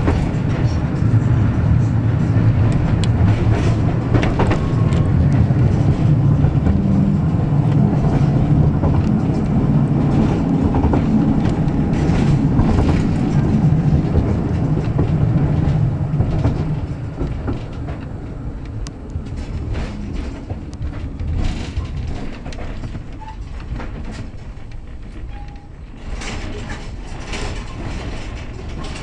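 Tram running along the track, heard from inside the cab: a strong low motor hum with the wheels clicking over rail joints. A little past halfway the hum drops and the run grows quieter, leaving mostly the wheel clicks and rolling noise.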